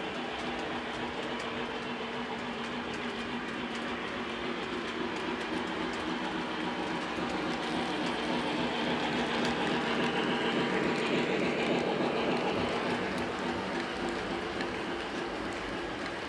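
Lionel Santa Fe 3751 model steam locomotive and its passenger cars running on three-rail track: a steady electric-motor hum with wheels rolling over the rails. It grows louder as the locomotive comes close, then eases off near the end as the cars roll past.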